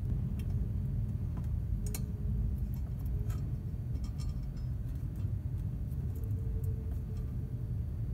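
Faint small clicks and ticks of thin stranded copper wire being twisted by hand around a neon tube's electrode wire, over a steady low background rumble.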